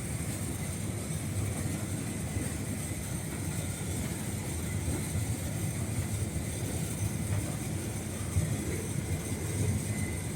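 Case IH 8120 combine harvester running steadily: a constant low drone with a faint steady high whine above it.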